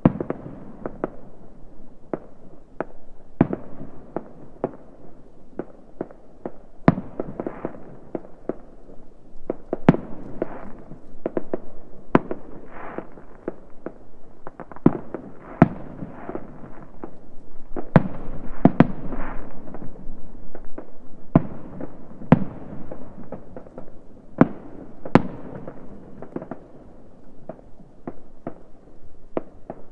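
Distant New Year's Eve fireworks going off: many sharp bangs at irregular intervals, a few much louder than the rest, over a constant din of fainter bangs.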